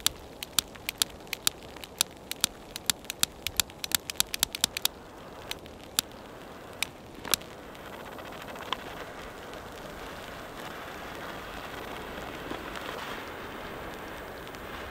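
Butane jet torch lighter's igniter clicking over and over, about two dozen sharp clicks in the first five seconds and a few more spaced out, until the torch catches about eight seconds in. After that its blue jet flame hisses steadily.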